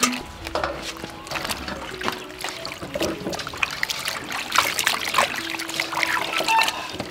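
Raw poultry feet splashing in a metal bowl of water as they are tipped in and rubbed clean by hand: water sloshing and trickling, with many small splashes and clicks.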